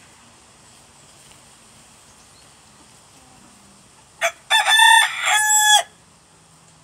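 Rooster crowing once, a little after four seconds in: a short opening note, then a long crow in two parts lasting about a second and a half.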